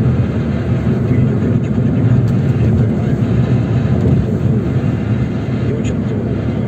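Steady low rumble of a car on the move, road and engine noise heard from inside the cabin.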